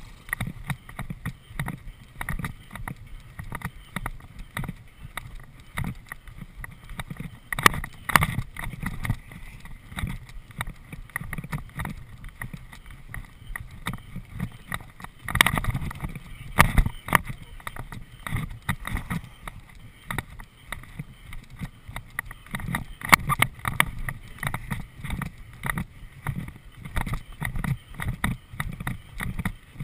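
Horse galloping cross-country on turf: a steady run of hoofbeats and tack rattle, with heavier thuds a little past halfway as it jumps a log fence.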